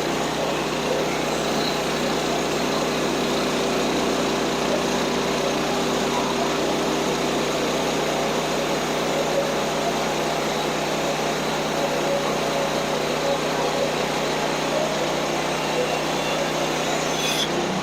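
Portable band sawmill's small gas engine running steadily under load, with the band blade cutting; it shuts off abruptly at the end.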